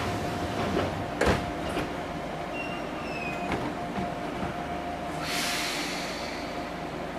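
Cab sounds of an Enshu Railway 1000-series electric train standing at a platform: a steady hum, a sharp clack of the cab door shutting about a second in, and a short hiss of air near the end.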